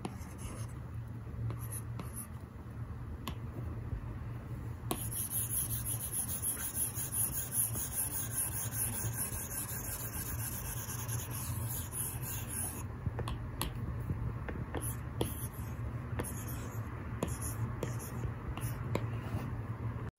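Apple Pencil 2 tip scratching and ticking on an iPad Pro fitted with a Paperlike paper-textured screen protector, in short handwriting strokes. From about five to thirteen seconds in there is a denser run of continuous rubbing strokes.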